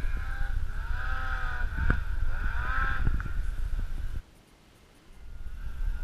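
Snowmobile engine revving up and down twice, with a steady high whine over a heavy low rumble. It cuts off abruptly about four seconds in, and a steadier engine drone fades back in near the end.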